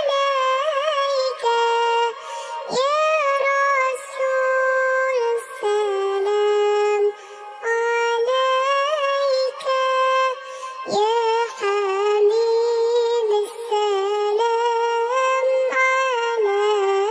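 A high-pitched, electronically processed singing voice sings a shalawat melody unaccompanied, in long held notes that step up and down with short breaks between phrases.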